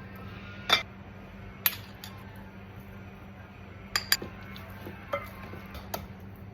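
Kitchen utensils clinking and knocking against cookware: about six sharp, irregularly spaced clinks, two of them in quick succession near the middle.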